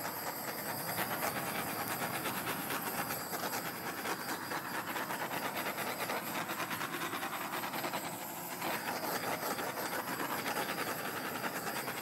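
Handheld butane torch burning with a steady hiss as it is passed over wet acrylic pour paint, easing off briefly about eight seconds in.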